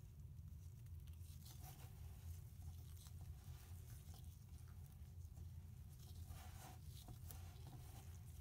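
Faint crumbly crackling and rustling of kinetic sand being squeezed and pressed together by gloved hands, in scattered soft bursts, over a steady low hum.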